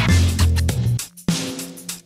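Background music with a bass line and a drum beat. It drops out briefly about a second in, then comes back more thinly.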